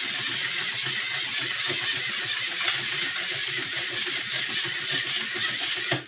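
Hand-cranked wooden model film projector running, its gears and shutter clattering in a rapid, steady ticking whir while it is cranked; the sound stops abruptly near the end.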